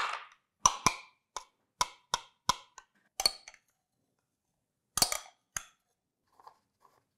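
Metal spoon clinking and scraping against a small glass beaker while cream is scraped out into a plastic jar. About eight sharp clinks in quick succession over the first three seconds, then a short cluster of clinks about five seconds in.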